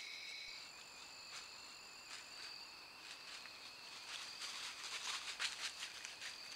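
White-tailed deer walking through dry fallen leaves: faint, irregular rustling and crunching of hooves, busiest about five seconds in, over a steady high-pitched whine.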